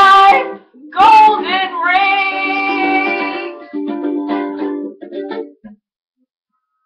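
A woman singing loud, held notes over a strummed ukulele. The singing and playing stop a little over five seconds in.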